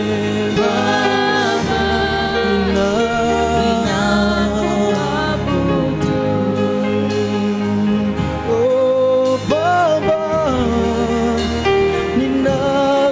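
Live gospel worship song: a lead singer with backing singers, accompanied by a band with drum kit and keyboard, the voices carrying held, wavering notes over steady low accompaniment.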